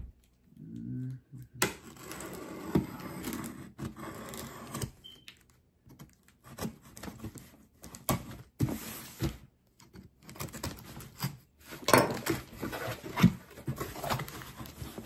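A knife slitting packing tape on a cardboard shipping box, a scratchy tearing with clicks and knocks. The cardboard flaps are then pulled open, and the loudest knocks and scrapes come near the end.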